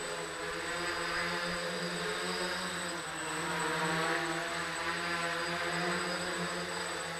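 RotorBits quadcopter's four electric motors and propellers whirring in flight: a steady, multi-toned buzz whose pitch drifts up and down a little as the throttle changes.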